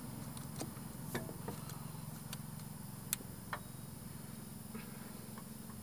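Faint, irregular metallic clicks and clinks of hand tools on engine fasteners, about six in all with the sharpest about three seconds in, over a low steady hum.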